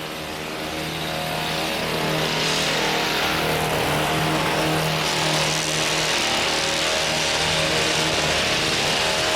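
An engine running steadily, getting louder over the first two seconds and then holding at a constant pitch.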